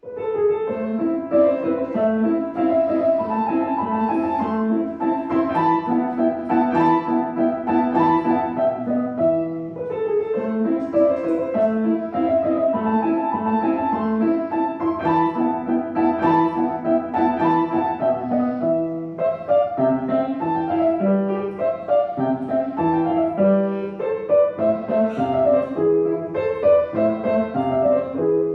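Solo piano playing a classical piece, with short breaks between phrases about a third and two thirds of the way through.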